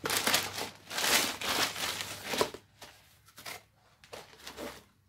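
A plastic courier mailer bag being torn open and crinkled by hand: loud rustling and ripping for the first two and a half seconds, then a few short, softer crinkles.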